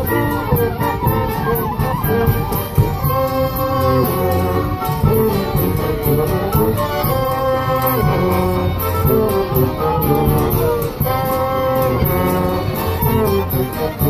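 A live acoustic street band playing a tune together: accordions, clarinets, fiddle and brass over a steady beat from a marching bass drum.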